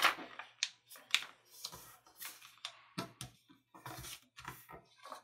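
A sheet of paper being folded and creased by hand into a paper airplane's wing fold: a scattered series of short, crisp crinkles and rustles as the fingers press the crease flat.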